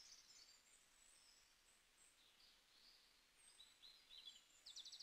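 Near silence with faint bird chirps, ending in a short, fast trill.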